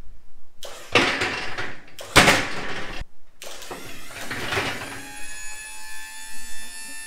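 Vevor 12-volt DC hydraulic pump raising a steel X-frame scissor lift. The first few seconds are harsh rushing and scraping noise that stops and starts abruptly; from about five seconds in it settles into a steady electric-motor whine with several even tones.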